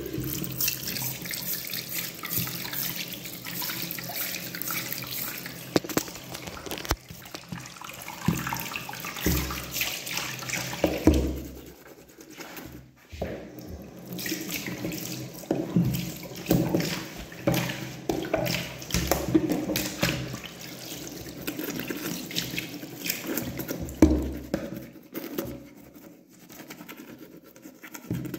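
Tap water running into a bathroom sink, unsteady in level, with a few louder bumps.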